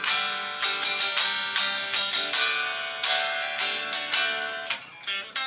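Leo Jaymz Monsoon electric guitar played unplugged, its bare strings picked. A new note or chord sounds about every half second, each ringing and fading.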